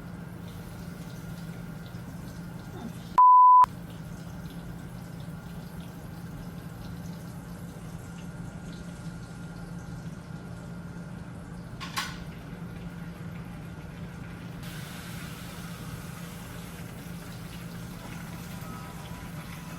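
A steady low hum, broken about three seconds in by one short, loud, pure-tone beep laid over silence, an edited-in censor bleep. A single click follows near the twelve-second mark.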